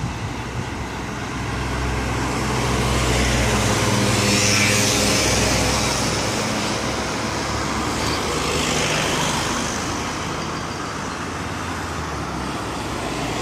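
Road traffic: motor vehicles passing over a steady low engine hum, the noise swelling about four seconds in and again around nine seconds.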